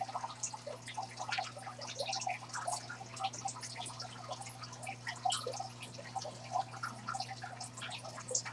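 Faint, irregular small clicks and crackles, scattered densely throughout, over a steady low hum.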